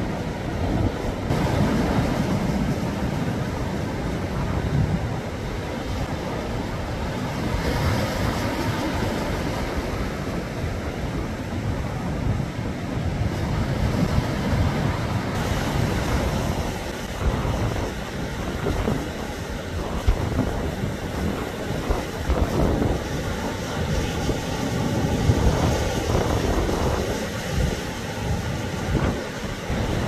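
Rough sea surf breaking and washing against a rocky shore, with strong gusty wind buffeting the microphone in a low rumble that swells and falls.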